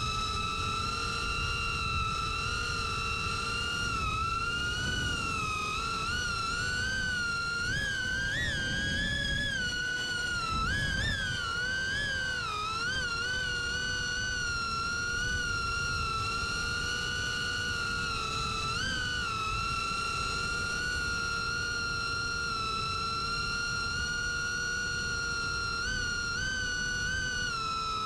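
Ethix Cinerat FPV drone's four 1607 2825KV brushless motors on 6S whining in flight: a steady high-pitched whine that wavers up and down with throttle several times in the first half and briefly twice later, over a rushing wind noise.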